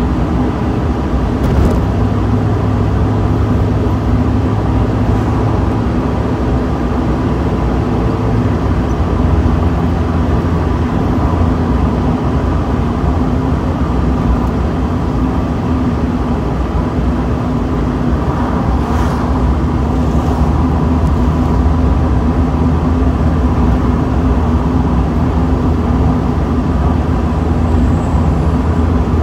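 Mazda Miata's four-cylinder engine running steadily at cruising speed, mixed with wind and road noise in the open cockpit with the top down. The engine note drops slightly about eight seconds in.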